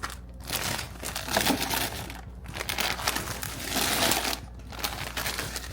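Plastic snack packets rustling and crinkling as they are handled, in several irregular stretches with short pauses between them.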